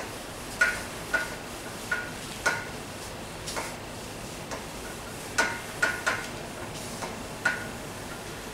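Whiteboard being wiped with a hand-held eraser: a series of about nine short clicks at uneven intervals, each with a brief ring, as the eraser knocks against the board.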